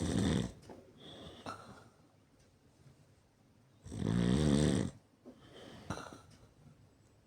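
A person snoring loudly. One snore tails off right at the start and another comes about four seconds in, each followed by a softer breath.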